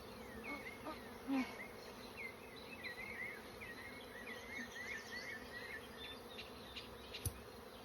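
Honeybees buzzing in a steady hum around the opened hive, a colony agitated by the inspection. A run of short high chirps sounds in the middle, and a sharp click comes near the end.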